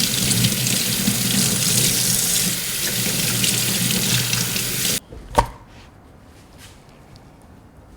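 Water running from a kitchen tap into a sink, shut off abruptly about five seconds in, followed by a single knock and a few faint clicks.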